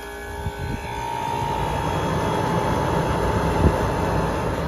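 A 1969 Westinghouse Mobilaire window air conditioner running with its cover off, just started: the fan and compressor build up over the first couple of seconds to a steady rush of air with a hum. There is a single low thump about three and a half seconds in.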